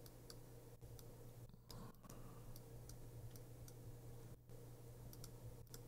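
Near silence: a faint steady hum with scattered faint clicks from a computer mouse.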